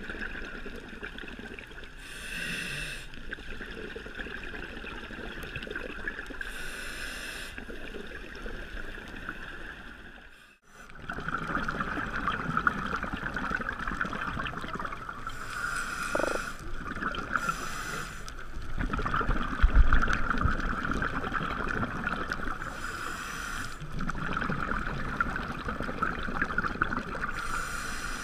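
Underwater sound of a scuba diver breathing through a regulator: short hissing bubble bursts of exhaled air every few seconds, over a steady high hum and faint crackling. A brief low rumble comes about two-thirds of the way through.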